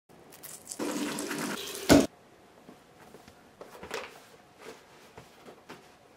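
Water running from a tap into a bathroom sink for about a second and a half, cut off by one sharp, loud knock. Then faint scattered clicks and rustles of handling.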